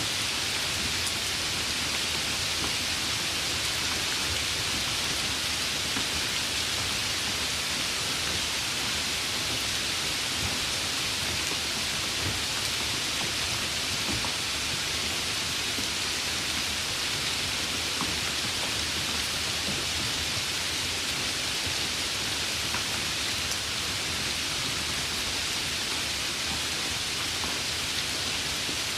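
Steady rain, an even hiss with a few scattered drop ticks.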